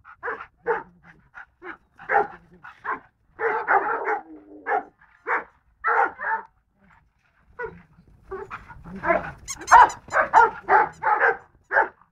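Golden retriever barking over and over in short, sharp barks, which come faster and louder in the last few seconds.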